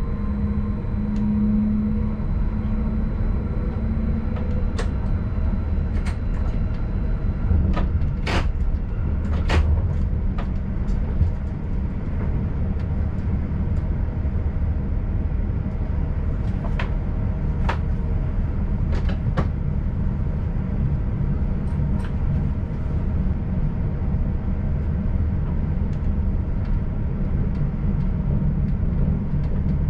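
Stadler RABe 515 'Mutz' electric multiple unit running through a rail yard, heard inside the driver's cab: a steady low rumble of wheels on the track, with scattered sharp clicks and knocks as the wheels pass over points and rail joints. A hum is heard in the first few seconds.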